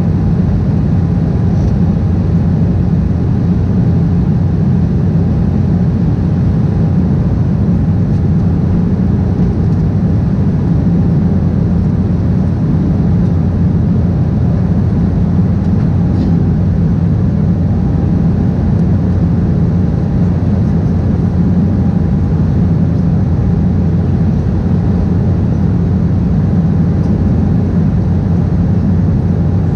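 Steady cabin noise inside an Embraer 190 airliner in flight: a constant low rumble of airflow and its GE CF34 turbofan engines, with a faint steady tone running through it.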